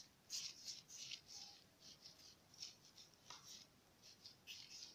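Palms rolling a log of soft dough back and forth on a plastic tablecloth: faint, irregular brushing swishes. The roll is being evened out so it is as thick in the middle as at the ends.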